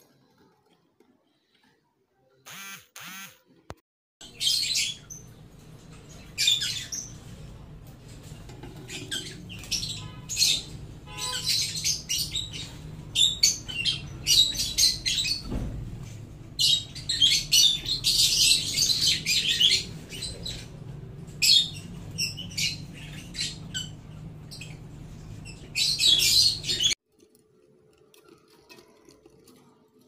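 Budgerigar squawking in rapid, harsh, high-pitched bursts over a low steady hum, after a few short calls; the sound cuts off suddenly near the end.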